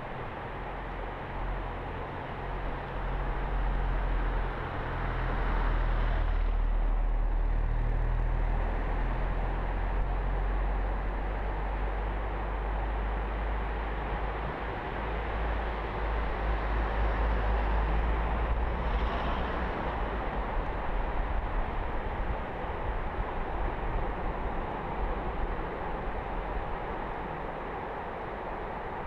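Seaside ambience: a steady, broad wash of sea noise over a heavy low rumble, which grows louder about four seconds in.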